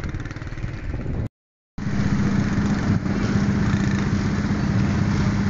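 Motorcycle engine running steadily while riding, with a steady low hum. It cuts out for about half a second near the start, where the clip is edited.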